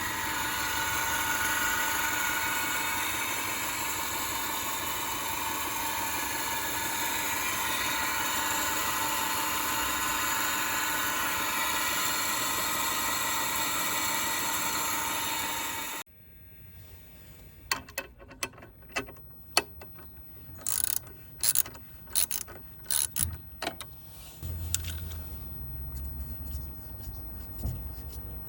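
Subaru EJ 2.5-litre SOHC engine running with a loud, steady whine from the front of the engine, the noise traced to the drive belts and accessory idler pulley; it is louder when the engine is cold. The engine sound cuts off suddenly about two-thirds of the way through, and a series of sharp clicks and knocks follows.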